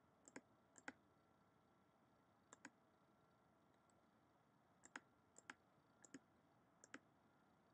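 Faint, sparse computer mouse clicks, each a quick press-and-release pair, about seven of them at uneven gaps, against near silence.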